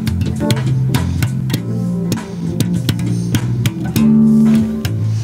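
Electric bass guitar played fingerstyle: a run of short plucked notes with crisp string attacks, then a longer held note about four seconds in, the loudest moment.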